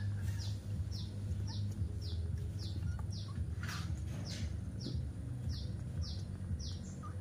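A small bird chirping in the background, short falling chirps about twice a second, over a steady low hum.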